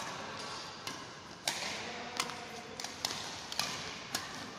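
Badminton doubles rally: a quick run of sharp racket strikes on the shuttlecock, about seven in four seconds, the strongest about one and a half and two seconds in.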